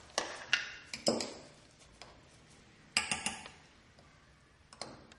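Light clinks and taps of measuring spoons against glass measuring cups and jars as dry baking ingredients are measured out: a few clinks in the first second, a quick cluster about three seconds in, and another near the end.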